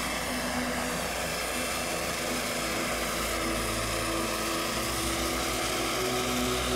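Large scale radio-controlled helicopter, built as a Eurocopter EC135 with a fenestron tail rotor, flying low past. It gives a steady rush of rotor and engine noise with a faint hum running through it.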